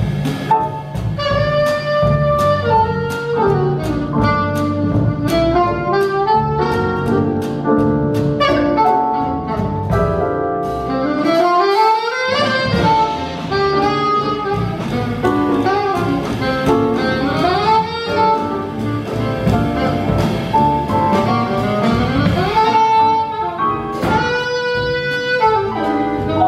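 Alto saxophone soloing over a live jazz rhythm section of double bass, piano and drums with ride cymbal. The sax plays quick runs and short phrases, with a long upward run about halfway through.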